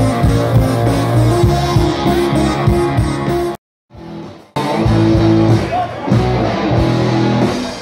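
Live band playing loud rock music with electric guitar and drums. The sound cuts out for about a second midway, then the music resumes.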